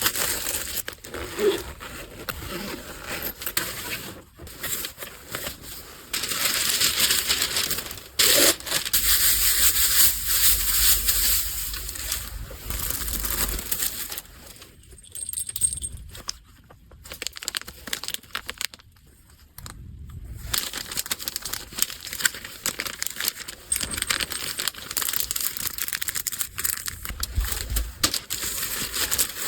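Packaging crinkling and rustling as it is handled, in irregular stretches with a couple of short pauses.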